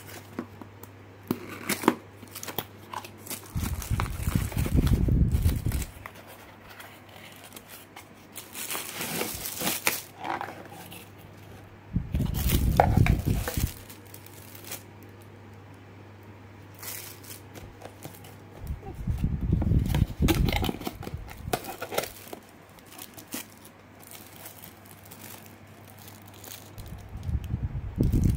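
Unboxing handling noise: a cardboard box and a clear plastic bag around a toy being handled, with plastic crinkling and rustling, scattered clicks, and several dull low bumps a few seconds apart over a faint steady low hum.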